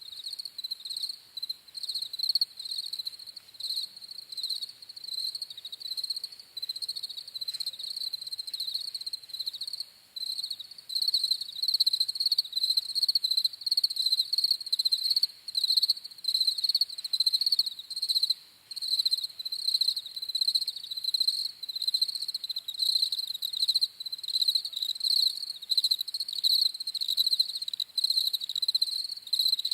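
Crickets chirping in rapid, unbroken pulsing trills, each chirp a high pitch near 4 kHz.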